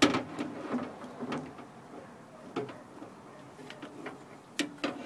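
New car window regulator, a metal rail and cable, knocking and clicking against the inside of a 2003 Honda Odyssey's door shell as it is worked into place. A sharp knock right at the start, then scattered lighter clicks and knocks.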